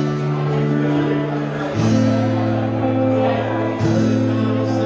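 Live acoustic band playing: acoustic guitars under long held notes, with the chord changing about two seconds in and again about a second before the end.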